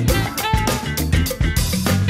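Background music with a steady drum beat and a melody line over it.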